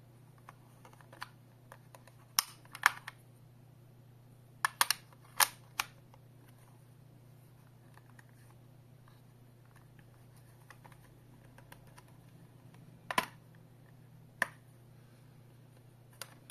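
Sharp plastic clicks and taps from a white plastic wireless alarm keypad's housing being handled and pressed. There is a pair of clicks, then a quick cluster a couple of seconds later, then a few single clicks spaced well apart.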